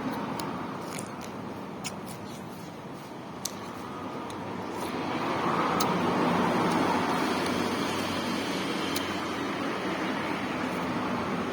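Steady rumble of road traffic that swells as a vehicle passes about five seconds in, with a few faint clicks over it.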